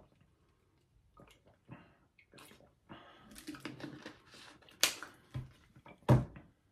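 Wet bathroom sounds of teeth being brushed with salt: irregular splashing and scrubbing noises, with two sharp, louder sounds about five and six seconds in.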